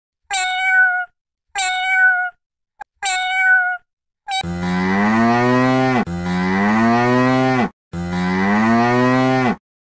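A cat meowing three times in short calls, followed by a cow mooing three times in long, low moos that rise in pitch.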